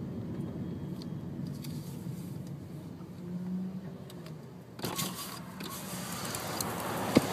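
A car's low, steady road rumble heard from inside the cabin while driving through a dust storm. About five seconds in, a loud hiss of wind cuts in abruptly, and there is a sharp click near the end.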